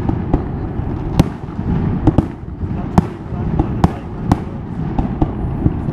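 Fireworks display: a dozen or so sharp cracks and bangs at irregular intervals over a continuous low rumble.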